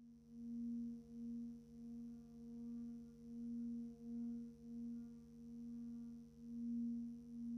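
Sustained singing-bowl drone, one steady low tone with fainter overtones, throbbing as it swells and fades a little more than once a second.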